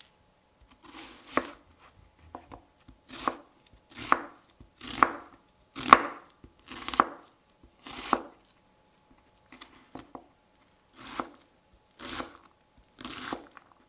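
Chef's knife slicing a red onion on a wooden cutting board. About ten unhurried cuts come roughly one a second, each a crisp slice ending in a knock of the blade on the board, with a pause of about two seconds before the last three.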